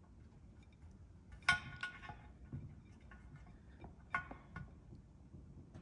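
A few light clicks with a brief metallic ring, the loudest about a second and a half in and again about four seconds in, as a metal fuel rail is pressed down onto a row of fuel injectors seated in an intake manifold.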